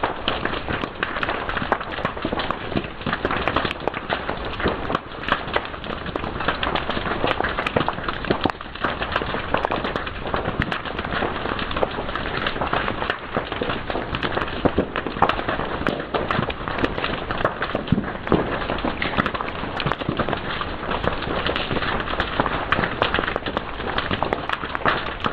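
Fire crackling and snapping: a dense, steady crackle with many sharp pops scattered throughout.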